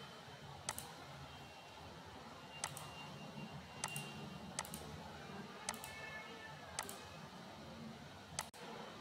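Computer mouse clicking seven times at uneven intervals, about a second apart, over a steady low background hiss.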